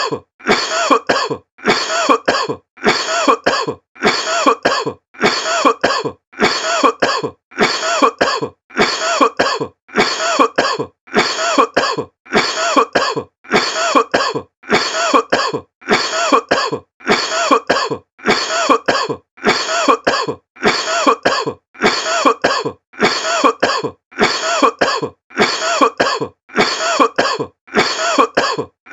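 A person coughing: the same short double cough repeats about once a second, identical each time, as a looped sample.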